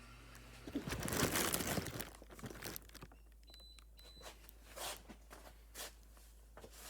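Crinkling and rustling of fire alarm wire being handled and pulled into place for stapling, loudest about a second in, followed by a few soft knocks.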